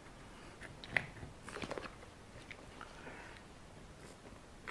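Faint close-up handling noises from hands working gel super glue onto a rubber RC tyre: a sharp click about a second in, a short crinkling crackle just after, and a few smaller ticks.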